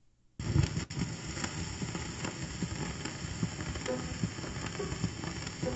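Stylus set down on a 1905 Zon-O-Phone shellac disc record with a thump about half a second in, then the steady hiss and crackle of the old disc's surface noise as it plays the lead-in.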